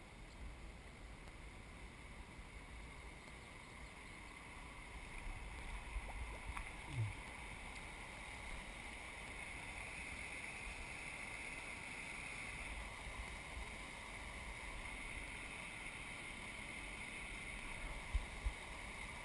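Spring water running out of a rock face into a river, a steady rushing that grows louder about halfway through as the kayak draws near. A few light knocks, one near the middle and two near the end.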